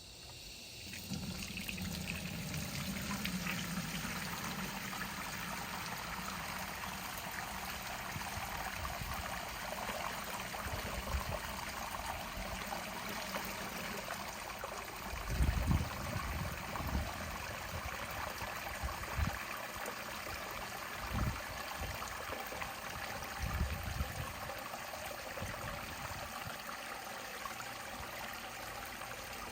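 Water pouring onto and draining through 4 oz nonwoven geotextile fabric, a steady pouring trickle that starts about a second in. A few low thumps come in the second half.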